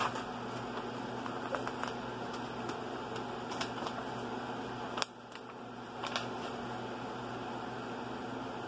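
Large paper shooting target being unfolded and handled, with scattered paper crinkles, over the steady hum of a spinning ceiling fan. A sharp click about five seconds in.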